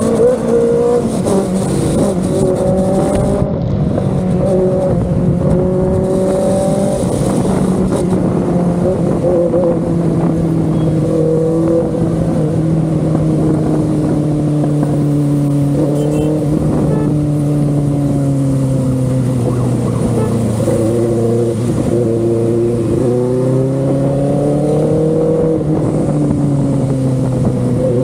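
Benelli 600i's inline-four engine running steadily at a fairly high engine speed, its exhaust note sliding gradually lower in pitch through the middle, with small rises and dips.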